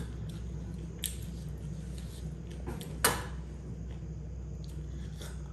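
Small handling and mouth sounds as a glass of cola is lifted and sipped: a few faint clicks and one sharper click about three seconds in, over a steady low hum.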